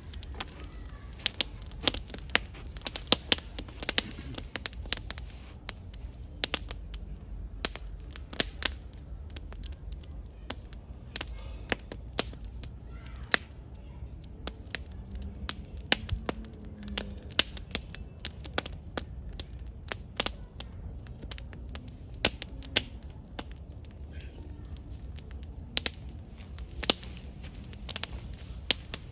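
Wood campfire burning and crackling, with frequent irregular sharp pops over a low steady rumble.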